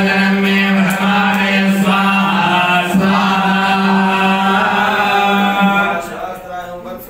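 Priests chanting Sanskrit mantras during a fire ritual, amplified through a microphone, over a steady low held note. The chanting drops in volume about six seconds in.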